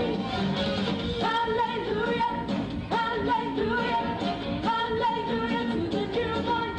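Singing with instrumental accompaniment: the voices slide up into long held notes about every two seconds.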